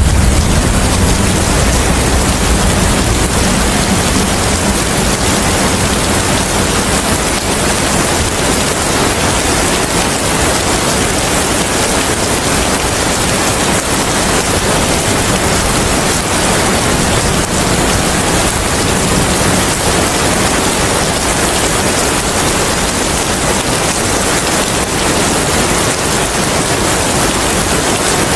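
Steady, dense rain. A low rumble dies away in the first second.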